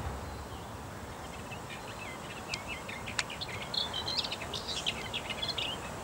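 A small songbird singing a quick, jumbled warbling song of high notes, starting about one and a half seconds in and running to near the end, over a steady low background hum.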